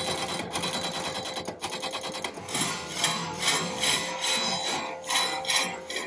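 Hydraulic breaker on a Bobcat S550 skid steer hammering rapidly against rock in a trench bottom, over the machine's steady running engine, chipping through rock to deepen the trench.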